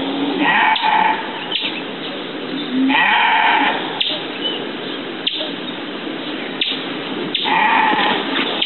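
Livestock bleating three times, each bleat about half a second long, over a steady background hiss.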